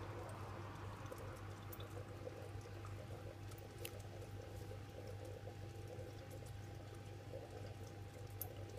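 Aquarium running: a steady low hum under continuous bubbling, trickling water, with a faint steady whine and a few small drip ticks.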